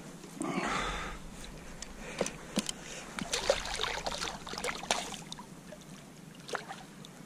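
Water splashing as a hooked fish thrashes at the surface beside a landing net, with dripping and a few sharp clicks and knocks in between.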